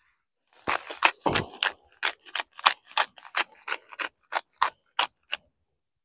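Hand-twisted spice grinder cranked over steaks, giving a run of about fifteen short crunchy clicks at roughly three a second as the mill grinds seasoning.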